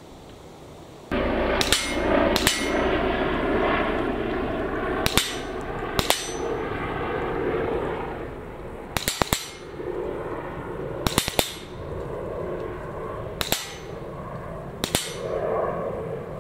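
Shots from a CZ Scorpion EVO 3 S1 semi-automatic .22 LR rimfire carbine fired at a steel sheep silhouette target, with the steel clanging as it is hit. There are about a dozen sharp reports, spaced a second or more apart and several in close pairs.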